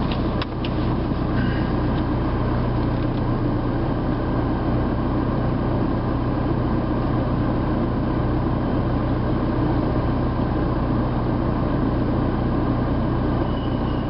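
Steady road and engine noise inside a moving car's cabin, a low hum under an even hiss, with the air conditioning running. A few light clicks about half a second in.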